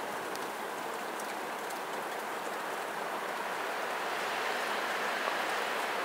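Wind rushing through conifer trees in a windstorm: a steady hiss of moving branches and needles that slowly swells louder toward the end.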